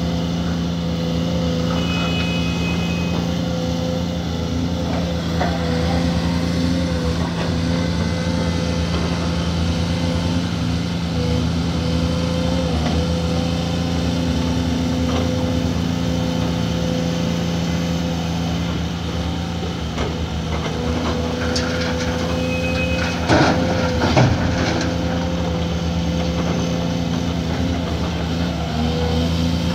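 Caterpillar 340D hydraulic excavator's diesel engine running steadily under load, with a short clatter of knocks about three-quarters of the way through.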